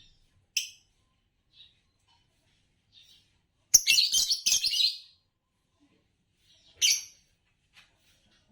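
Green Fischer's lovebirds chirping: a single sharp chirp, then midway a loud rapid run of chirps lasting over a second, and another sharp chirp later on, with faint soft chirps in between.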